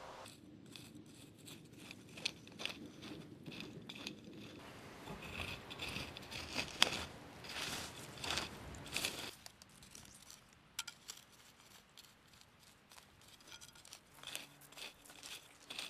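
Curved hand weeding sickle scraping and crunching through dry, lumpy soil in many short strokes, cutting out weeds. The scraping goes on for about nine seconds, then gives way to a few faint scattered clicks.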